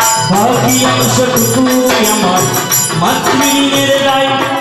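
Live Bengali kobi gaan (folk poet-song) music: a melody sung or played over sustained accompaniment, with regular percussion strikes.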